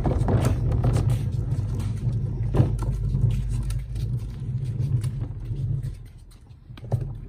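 Plastic wheels of a wheeled garbage cart rolling over asphalt and concrete: a steady low rumble with a knock about two and a half seconds in. The rolling stops about six seconds in.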